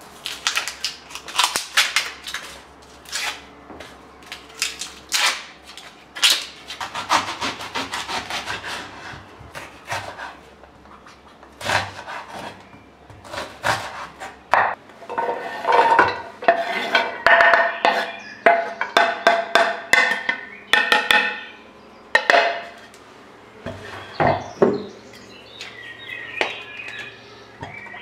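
Small kitchen knife peeling and then dicing an onion on a wooden cutting board: irregular crisp knife cuts and taps on the board, thickest and loudest in the second half.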